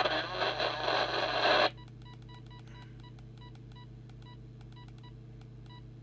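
A loud burst of received signal from the CB set's speaker cuts off abruptly after about a second and a half. Then the Midland M5 microphone's keypad gives short high beeps, about three a second, as its channel button is pressed over and over; the set, locked in scan, does not change channel.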